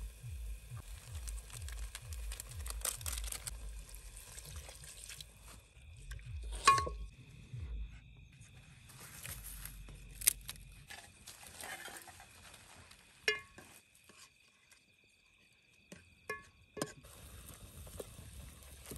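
Cooking over a wood fire: food sizzling in a steel pot, with a handful of sharp knocks and clinks of a spoon or ladle against the pot, the loudest about a third of the way in.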